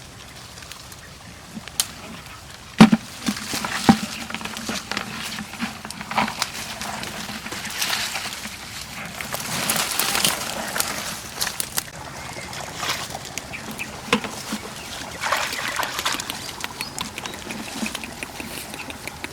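Shallow flowing floodwater splashing and sloshing as hands pick through it. There are a few sharp knocks in the first four seconds, the loudest about three seconds in, and louder splashing around ten and fifteen seconds in.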